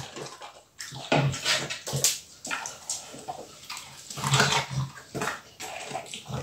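A Staffordshire bull terrier crunching and chewing raw cucumber slices, with wet smacking mouth sounds in irregular bursts.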